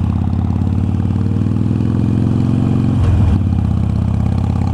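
Harley-Davidson Iron 883's air-cooled V-twin running loud at low revs, rolling along in low gear near idle speed, with a brief change in its note about three seconds in.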